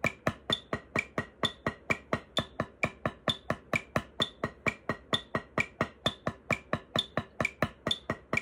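Drumsticks playing steady alternating eighth notes on a practice pad at 130 beats per minute, about four strokes a second, with a metronome clicking on the beat.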